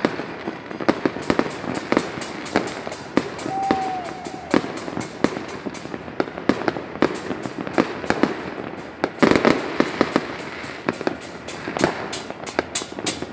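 Fireworks going off all across a city at once: a dense, irregular run of sharp pops and bangs near and far, with a thicker, louder cluster of rapid bangs about nine seconds in.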